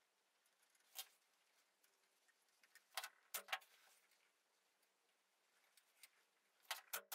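A few faint short taps and rustles from hands folding and tucking upholstery fabric around a wooden stool leg. There is one about a second in, a cluster around three seconds, and another near the end.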